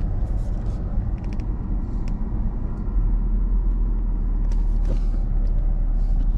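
Car running with a steady low rumble of engine and road noise, growing a little louder about three seconds in, with a few light clicks over it.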